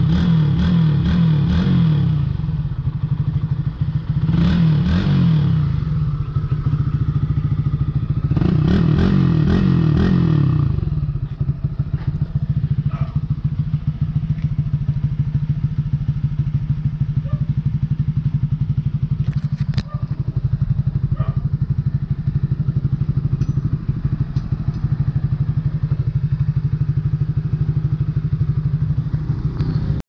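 Honda RS150 (Sonic 150) single-cylinder engine breathing through a fitted Suzuki Raider R150 Fi stock exhaust pipe. The throttle is blipped three times in the first eleven seconds, each rev rising and falling quickly, and then the engine idles steadily with an even pulse.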